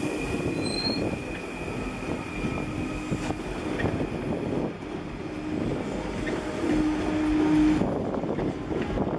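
Stadler FLIRT electric multiple unit running past close by, its wheels rumbling over the rails with light knocks. A steady whine rides over the rumble and is loudest about seven seconds in.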